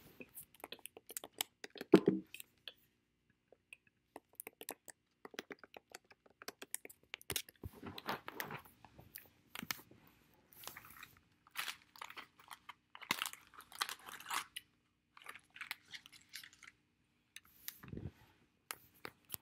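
Someone chewing and biting crunchy food close to the microphone: a long run of irregular crunches and clicks, the loudest about two seconds in, with a low thump near the end.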